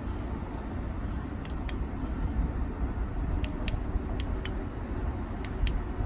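Steady low background rumble, with pairs of short, sharp clicks recurring every second or two.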